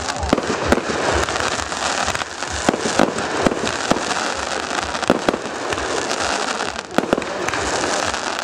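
Aerial fireworks shells bursting in quick succession: many sharp bangs over a continuous hissing crackle of burning stars.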